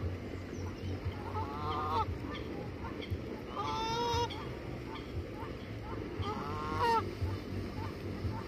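Canada goose honking three times, each a drawn-out call of under a second with a slight bend in pitch.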